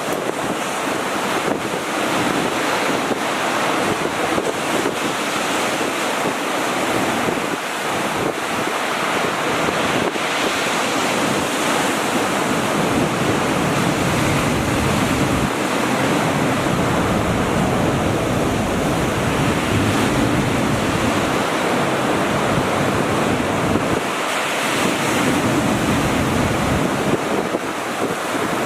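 Sea waves breaking and washing up a beach in a steady rush of surf, with wind buffeting the microphone as a low rumble, heaviest through the middle stretch.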